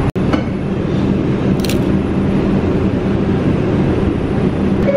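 Subway train heard from inside the car: a loud, steady rumble with a constant low hum, and a brief high hiss about one and a half seconds in.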